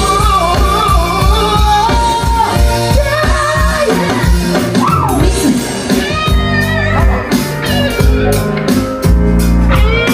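Live band playing: singing over electric guitar, bass, keyboard and drums, with a steady beat.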